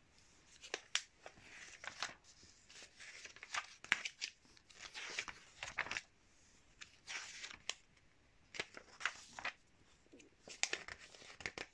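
Glossy magazine pages being turned by hand: paper rustling and swishing, with a string of crisp flicks and snaps as the pages move and fall.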